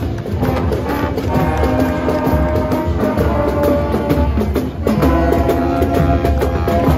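Marching band playing: brass and saxophones in held chords over a steady beat from snare and bass drums. There is a short break in the playing a little before five seconds in, then the next phrase begins.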